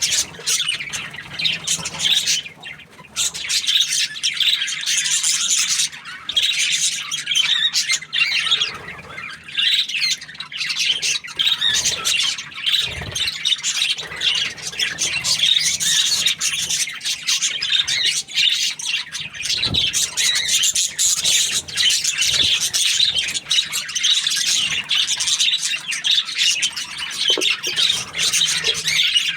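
Budgerigar chirping and chattering almost without pause: a dense stream of high chirps and squawks with only brief breaks.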